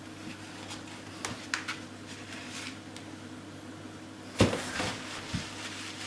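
Light clicks and knocks over a steady low hum: a few small clicks, then one heavy knock about four seconds in and a softer one about a second after.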